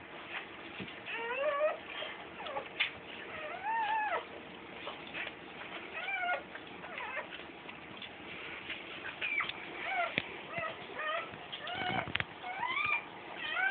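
Newborn Whoodle puppy crying in short, high-pitched, mewing squeals that rise and fall, repeated every second or so.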